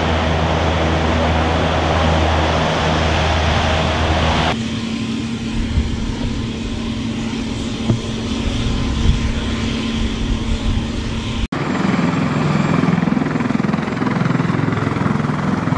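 Japanese LCAC hovercraft running loud as it drives up onto the beach, its gas turbines and ducted propellers making a dense steady roar. About four and a half seconds in, this cuts to a quieter steady engine hum with one constant tone. About eleven seconds in, it cuts again to CH-53E Super Stallion helicopters running on a ship's flight deck, a wavering low rotor drone.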